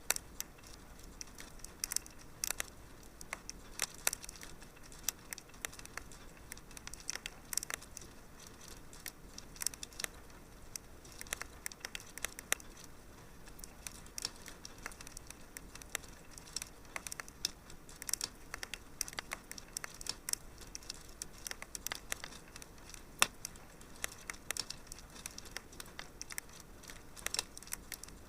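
Fireplace wood fire crackling: frequent, irregular sharp snaps and pops over a faint steady hiss, with one louder pop about two-thirds of the way through.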